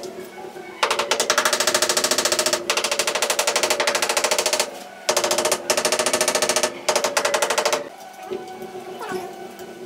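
Rapid, even tapping of a tool on a ceramic wall tile freshly set on mortar, bedding it against the wall. It comes in two long runs of several seconds each with a brief pause between, and stops near the end.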